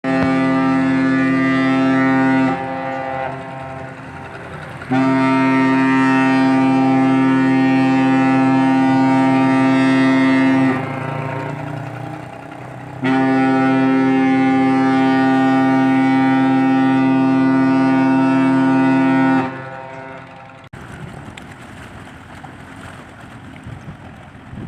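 Ship's horn of the passenger ship Bukit Raya sounding three times: a shorter blast of about two and a half seconds, then two long blasts of about six seconds each, each a steady deep chord with an echo fading after it. Wind on the microphone follows in the last few seconds.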